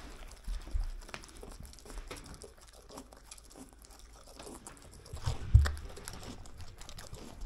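Pet pig crunching dry Cheerios off a carpet, a run of small crisp crackles and bites. A low thump about a second in and a louder one about five and a half seconds in.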